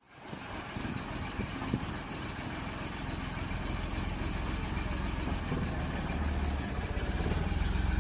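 A car engine idling steadily, growing a little louder toward the end, with a short knock about two seconds in.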